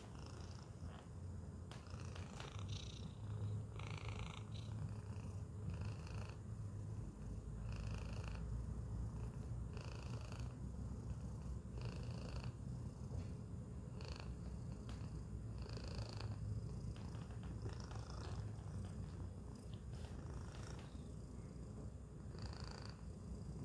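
Domestic tabby cat purring steadily, close up.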